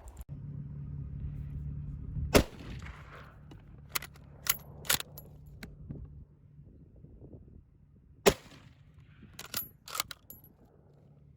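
Two loud gunshots about six seconds apart, with several fainter sharp cracks or clicks in between.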